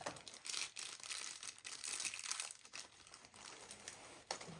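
Plastic packaging crinkling and rustling unevenly as it is handled.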